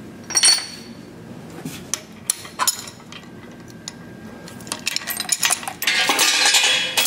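Metal clinks and rattles from handling a bare engine block on an engine stand: a ringing metallic clink about half a second in, scattered light ticks, and a longer scraping rattle near the end.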